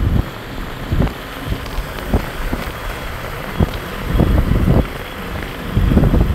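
Wind buffeting the microphone in irregular low gusts, over a steady low rumble of city traffic.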